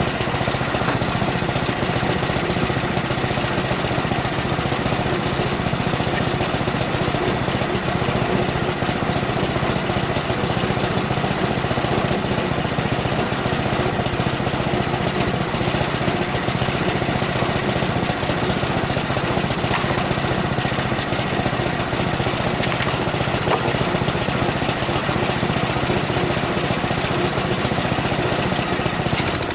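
Frontier OS23 portable band sawmill running steadily: its small gas engine driving the band blade while pine boards are crosscut.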